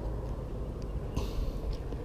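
Wind rumbling on the microphone, with faint clicks and a short scraping rustle about a second in as fishing pliers work at a hook in a small bass's mouth.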